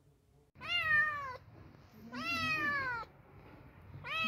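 Ginger cat meowing three times, each meow about a second long and falling in pitch at the end; the third begins near the end.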